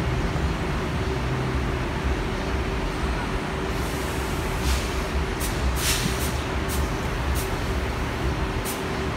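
Steady street traffic rumble with a faint constant hum, and about six short, sharp hisses in the second half.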